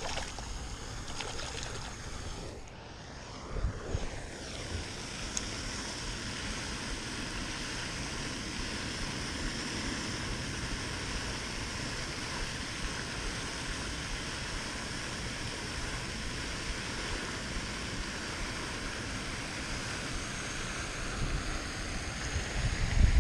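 Steady hiss of water spraying from a pond fountain, with wind on the microphone. There are a few soft handling knocks about four seconds in.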